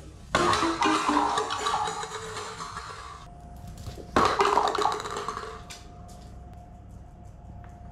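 Stacked paper cups clattering and tumbling across a wooden floor as a small dog crashes into the cup wall, a clatter of about three seconds. About four seconds in comes a second, shorter clatter as more cups are knocked over when a dog jumps the wall.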